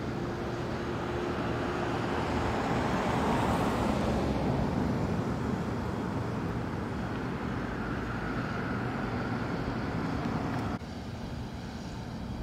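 Outdoor engine noise of a passing vehicle: a steady rumble and hiss that swells to a peak a few seconds in, slowly fades, then drops off suddenly near the end.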